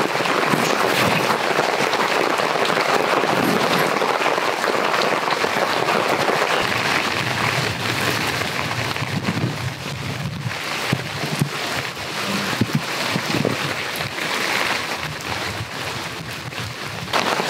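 Heavy rain falling steadily on a camping tarp and the forest, many separate drops striking close by.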